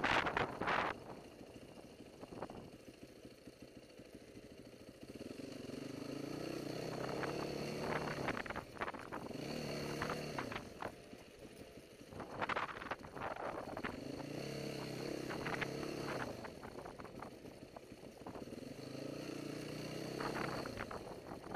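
Yamaha dirt bike engine under way on rough ground, its note rising with the revs and dropping back several times as the throttle opens and closes. Bursts of wind buffet the microphone, hardest right at the start.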